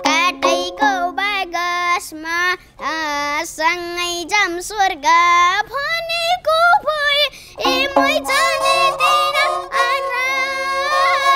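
A young boy singing a Nepali song with a wavering, ornamented voice, accompanying himself on a bowed Nepali sarangi (the small four-string Gandharva fiddle). The fiddle's steady held notes drop out for a few seconds in the middle while the voice carries on, then return.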